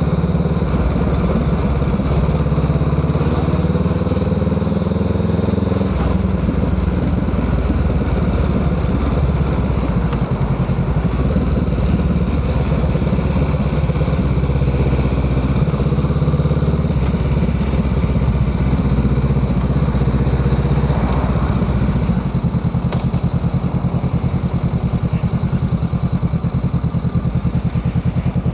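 Honda Rebel 500 parallel-twin engine running through an aftermarket Musarri exhaust muffler. The engine speed changes about six seconds in, and again about 22 seconds in, where it drops to a lower, evenly pulsing note.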